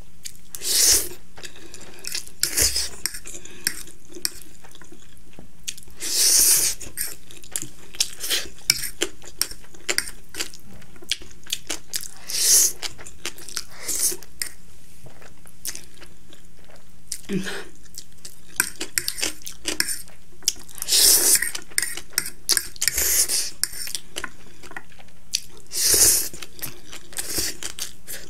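A metal fork clinking and scraping on a ceramic plate while twirling noodles, with about six loud slurps of noodles being sucked in and chewing in between.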